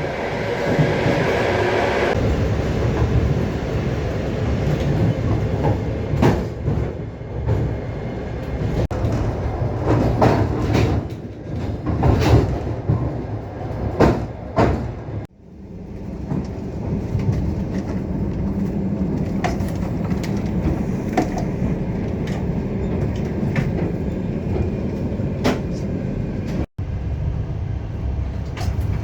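Passenger train running, heard from on board: a steady low rumble of the wheels and carriage, with a run of wheel clacks over rail joints between about six and fifteen seconds in. The sound cuts out abruptly twice for a moment.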